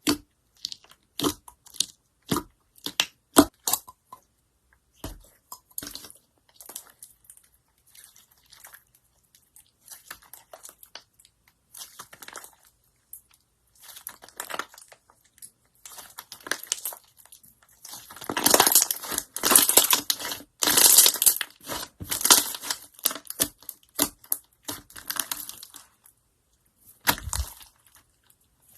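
Slime being squeezed and poked by hand. It opens with a quick run of sharp pops and clicks, goes on with sparse faint crackles, then turns to dense crunchy crackling for several seconds past the middle, and ends with a couple of clicks.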